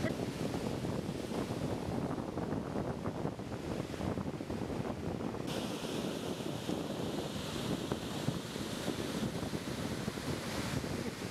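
Ocean surf washing and breaking, with wind rumbling on the microphone. The hiss of the surf turns brighter about halfway through.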